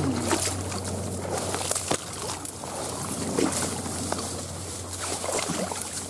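Shallow water sloshing and splashing, with scattered knocks and rustles over a steady low hum.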